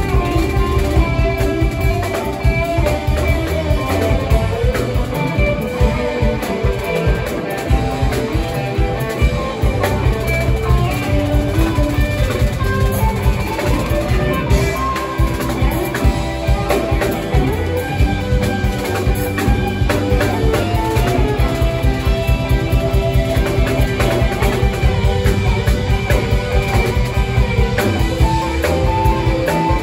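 Live rock band playing an instrumental passage: electric guitars over a steadily pounding drum kit.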